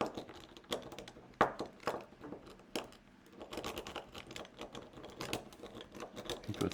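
Multipick Elite Abona rake pick being raked in a padlock's keyway: quick, irregular metallic clicks and scrapes as the pins are bounced, without the lock opening.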